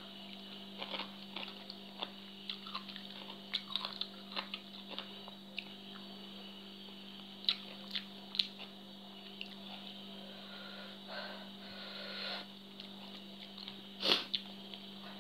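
A person chewing and smacking on a mouthful of papaya salad eaten by hand, with scattered small wet clicks and a louder burst of mouth noise near the end. A steady low hum runs underneath.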